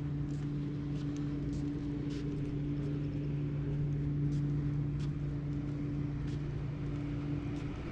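Steady low mechanical hum at a constant pitch, like an engine or motor running evenly, with faint scattered ticks.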